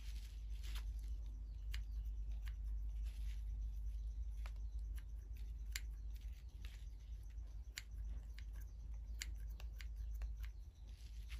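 Scissors snipping jute twine: a series of short, sharp snips at an uneven pace, about one a second.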